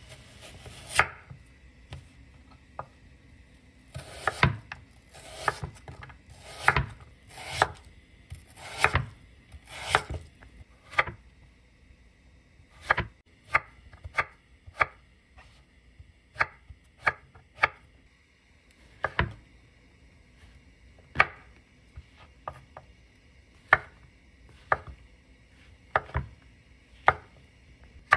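Chef's knife dicing zucchini and slicing chili peppers on a wooden cutting board. The blade knocks sharply against the board, in uneven runs at first and then in single strokes about a second apart.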